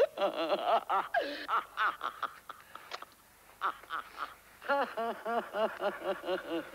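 A voice laughing in short, cackling bursts, ending in a fast, even run of about five cackles a second in the second half.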